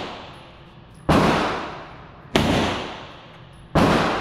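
Three handgun shots about a second and a half apart, each a sharp crack followed by a long echoing decay off the walls of an indoor range.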